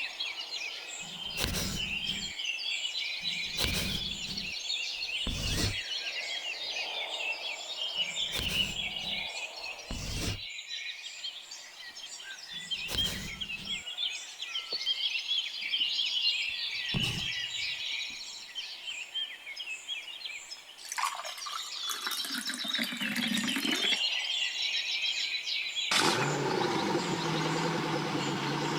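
Birds chirping continuously, with short knocks every second or two through the first half. Near the end a small motor starts and runs steadily.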